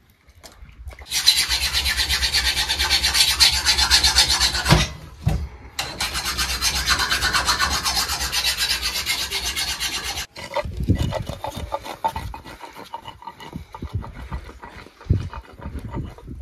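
Rapid, rhythmic rasping scrape in two long runs of several seconds each, with a short pause between them; after that it gives way to quieter, scattered knocks and handling sounds.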